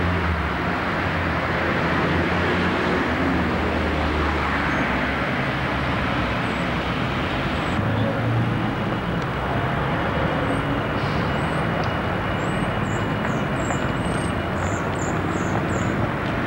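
Road traffic: cars and buses passing on a town street, with a low engine rumble for the first few seconds. Short high chirps come near the end.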